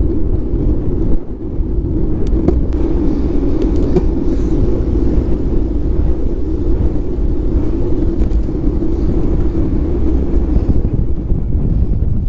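Wind rushing over the microphone of a handlebar-mounted GoPro on a road bike at speed: a steady low rumble, with a brief dip about a second in.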